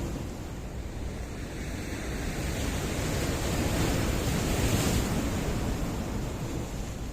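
Sea surf breaking and washing against rocks: a steady rush of water that swells to a peak about five seconds in, then eases off.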